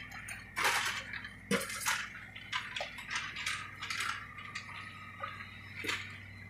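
Excavator demolishing a wood-frame house: debris crashing and clattering in a string of sharp knocks, over the steady low hum of the excavator's diesel engine.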